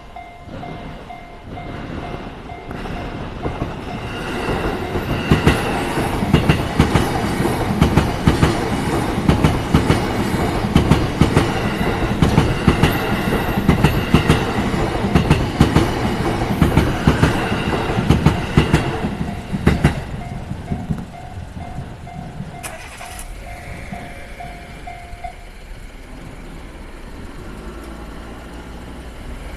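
An electric JR Chuo Line train passes over a level crossing, its wheels clacking in a steady rhythm over the rail joints. The crossing's warning bell rings at the start, is covered by the train, is heard again as the train clears, and stops a few seconds later.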